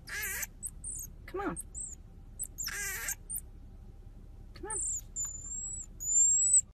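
Marmoset calling: short high-pitched chirps and whistles, and two harsher noisy calls near the start and about three seconds in. From about five seconds in it gives long, thin, steady whistled phee calls, and the last one is the loudest.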